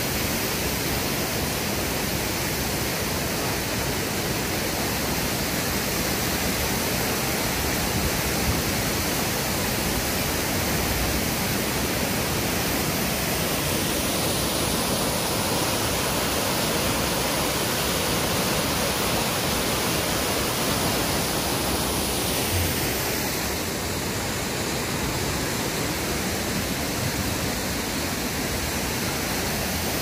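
Artificial waterfall: water pouring and splashing down a rock face in a steady, even rush, a little hissier for several seconds in the middle.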